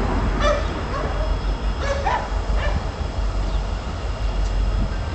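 A dog barking a few short times in the first half, over a steady low rumble.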